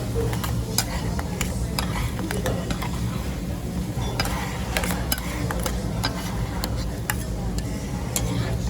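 Metal spatulas clacking and scraping on a hot griddle as monja batter is mixed and spread, with many quick, irregular clicks over a soft sizzle. A steady low hum runs underneath.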